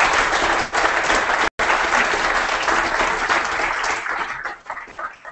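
Audience applauding, the clapping thinning out from about four seconds in and dying away near the end, with a split-second dropout in the recording about one and a half seconds in.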